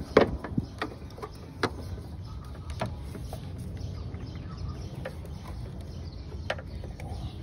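Scattered light knocks and clicks of metal parts as a car alternator is pushed by hand back into its mounting bracket, the sharpest just after the start, over a steady low background hum.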